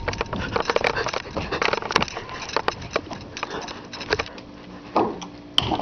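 Irregular rapid clicks, knocks and rustling of a handheld camera being moved and carried, with a couple of heavier thumps near the end.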